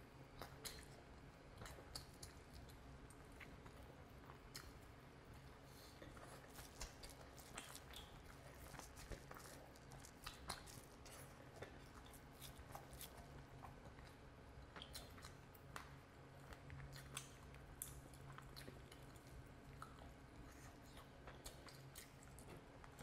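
Close-miked wet chewing and biting of curried chicken, with many small sticky clicks and squelches from bare fingers tearing meat and working rice in curry; quiet, over a faint steady low hum.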